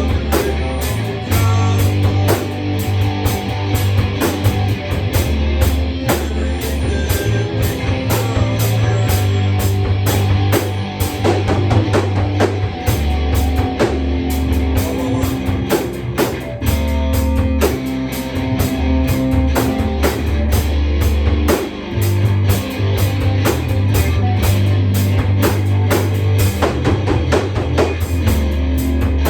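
Rock music with a drum kit and guitar over a deep bass line; the drums keep a steady, fast beat.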